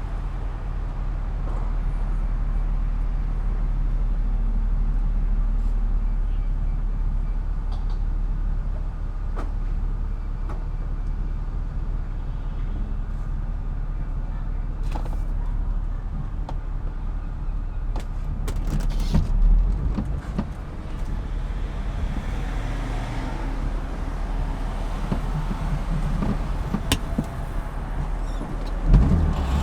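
BMW E36 M3's inline-six running as the car is driven, heard from inside the cabin as a steady low rumble. There is a louder swell about two-thirds of the way through and a short thump near the end.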